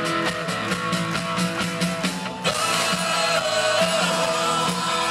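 Live rock band playing an instrumental passage with electric guitars and drums. About two and a half seconds in, the sound becomes fuller and brighter.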